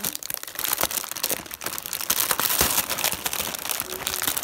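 Shiny metallic foil gift wrap crinkling and tearing as a dog rips at it with its mouth and a hand pulls at the paper, a dense run of quick crackles throughout.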